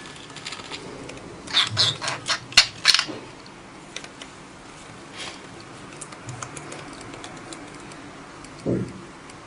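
Pet budgerigar making a quick run of sharp clicks and chirps about one and a half to three seconds in, with a few faint ticks after. Near the end comes a single short, low cough-like sound, the cough this budgie has learned to imitate.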